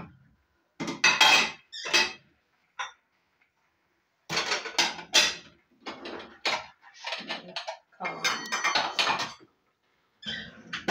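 Ceramic plates and bowls clattering and clinking as they are stacked and set on cupboard shelves, in several separate bursts with short pauses between them; a few strikes ring briefly.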